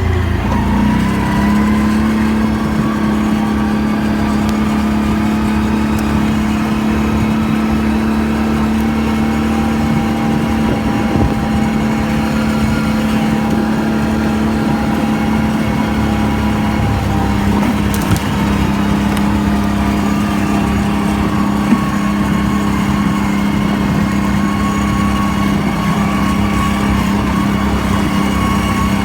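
Can-Am Outlander ATV engine under way, climbing in revs in the first second and then holding a steady pitch. A single sharp click about 18 seconds in.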